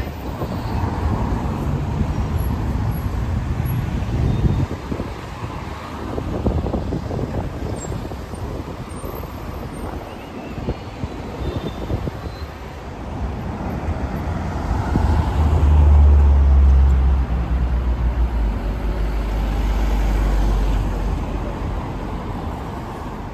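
Street traffic passing along a city road. A vehicle's deep engine note swells to the loudest point about two-thirds of the way through, then fades.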